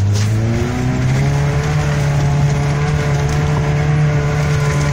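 Off-road 4x4's engine, heard from inside the cab, revving up over the first second and a half and then held at steady high revs as it drives up a forest slope.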